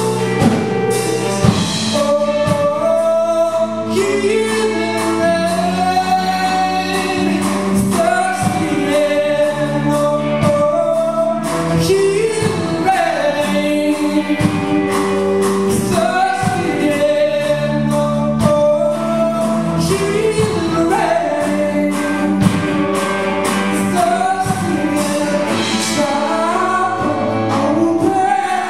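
Live song: a man sings the lead vocal into a microphone over band accompaniment, with held low notes and a steady beat underneath.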